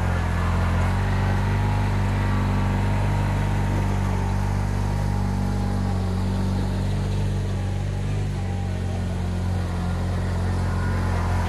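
An engine running steadily at a constant speed, its level dipping slightly about two thirds of the way through.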